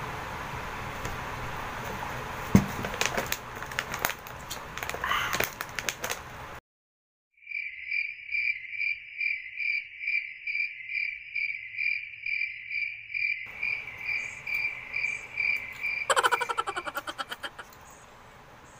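Drinking from a plastic water bottle against a steady hiss, with a few knocks and clicks. After a sudden cut to dead silence, a cricket-chirp sound effect comes in, pulsing about twice a second for roughly nine seconds, and ends in a quick run of clicks.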